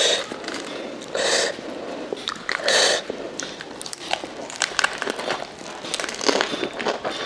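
Close-miked eating: three short loud mouth noises in the first three seconds, then crisp crunching and chewing as a lettuce-leaf wrap of saucy jhol momo is bitten, with many quick sharp crackles from about four seconds in.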